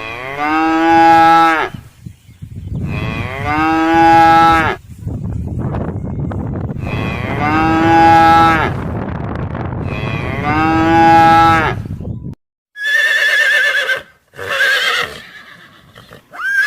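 A cow mooing four times, each moo a long call of about two seconds. About twelve seconds in the mooing cuts off, and a horse whinnies with a higher, wavering call.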